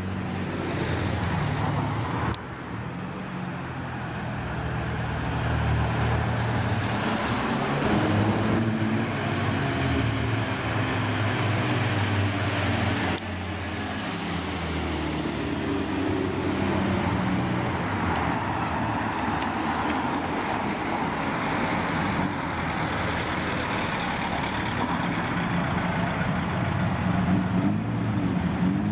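Classic cars, among them Morris Minors, driving past one after another at low speed, their engine notes rising and falling as each passes.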